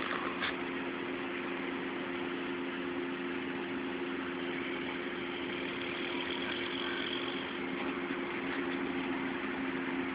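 A machine humming steadily at one constant pitch, with an even hiss over it.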